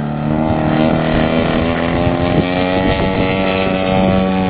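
Engine of a large scale RC model Cessna running at high power on its takeoff roll, its pitch rising slowly and steadily.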